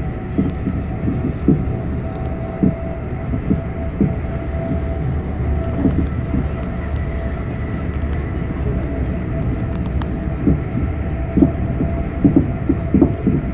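Cabin noise of a Class 350 Desiro electric multiple unit running at speed: a steady low rumble of wheels on rail with a faint steady tone above it. Scattered short knocks come through, more often near the end.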